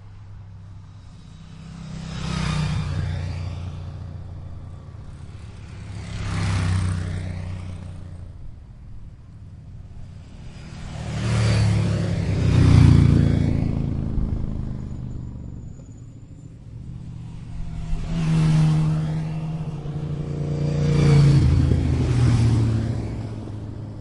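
Motorcycles passing by one after another, about six passes, each engine sound swelling as it approaches and fading as it goes away. Two pass in quick succession in the middle, and the last two come close together near the end.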